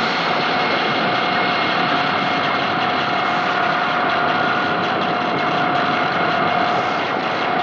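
Experimental noise music: a dense, unbroken wall of hiss and rumble with a few steady high tones held through it, changing little.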